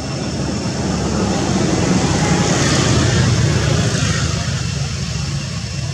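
A vehicle passing by: a low rumble with a rushing hiss that swells to a peak about three seconds in and then fades.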